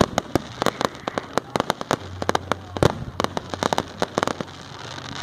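Fireworks going off in rapid, irregular cracks and pops, several a second, with one louder bang about three seconds in.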